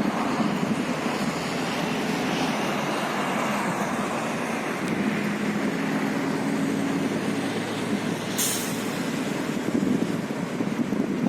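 A heavy vehicle's engine running steadily amid street noise, with a short sharp hiss about eight seconds in.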